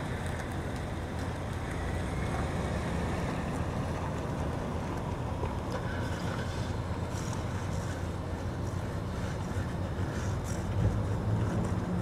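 Steady low outdoor rumble with a hiss of background noise, and a few faint clicks in the second half.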